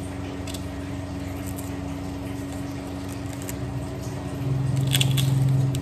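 A kitchen knife working at a tough onion, faint cuts and clicks over a steady hum. About four and a half seconds in, a louder low hum comes in for about a second, with a sharp scrape in the middle of it.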